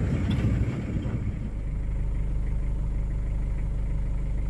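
A vehicle engine idling, a steady low hum that evens out after about the first second and a half.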